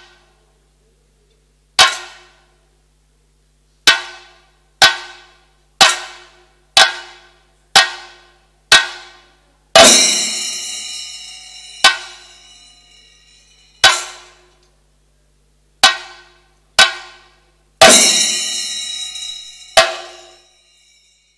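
Slow, widely spaced single strokes of chenda drums and ilathalam hand cymbals sounding together in a thrithayambaka, about one every second or two, each left to ring out. Two heavier strokes, about halfway and near the end, ring on much longer.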